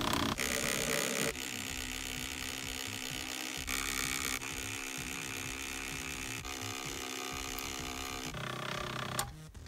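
Capresso electric milk frother running, its small motor spinning the whisk through a thin creamer-and-water mix with a steady whirring hum. The hum dies away shortly before the end.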